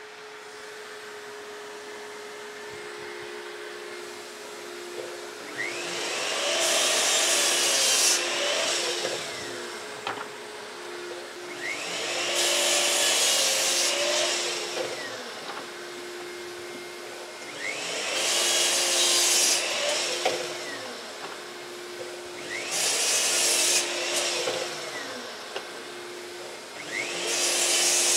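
Bosch mitre saw crosscutting small pieces of wood five times, its motor whining up to speed, cutting, and winding down each time. A dust extractor runs with a steady drone underneath and between the cuts.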